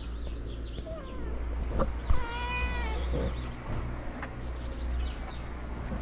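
Street cats meowing: a short falling meow about a second in, then a longer, louder meow a little after two seconds. A single sharp knock, the loudest moment, comes just before the long meow.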